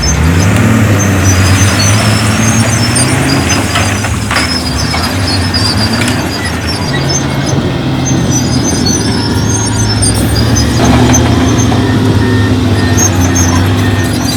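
Heavy diesel earthmoving machine engine running under load, its pitch rising in the first couple of seconds, easing off midway and picking up again later, with a few metallic knocks in between.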